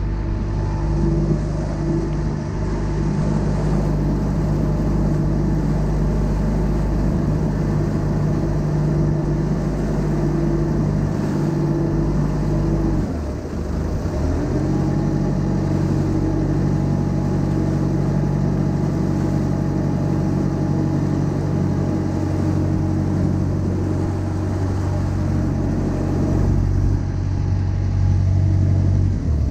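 Engine of a Thai long-tail boat running steadily under way. About halfway through, the engine note briefly drops and then picks back up.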